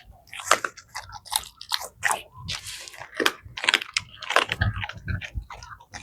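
Rottweiler chewing raw chicken carcass, the bones cracking and crunching in a quick, irregular run of sharp snaps with heavier low crunches.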